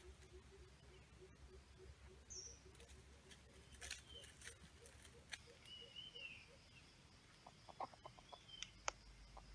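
Faint forest birdsong: a low, rapid pulsing call through the first half, a few short high falling calls, and scattered light clicks and rustles in dry leaf litter, more of them near the end.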